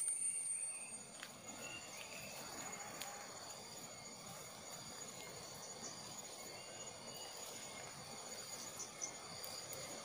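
Insects chirring steadily in several thin high tones, a louder one fading out within the first second. Underneath are the scuffing footsteps and leaf rustle of someone walking a dirt path through bushes.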